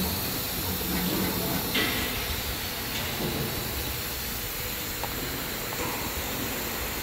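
Steady hiss of workshop machinery running in a CNC router shop, with a short clack about two seconds in.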